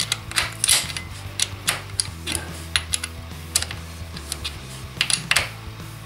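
Irregular metallic clicks and taps of a 12 mm spanner working a lock nut down onto an alternator chain tensioner bolt, tightening it to secure the tensioner.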